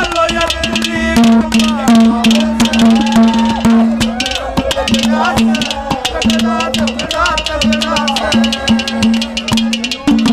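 Live Haryanvi ragni: a man sings into a microphone over a held drone note and quick, steady drum strokes.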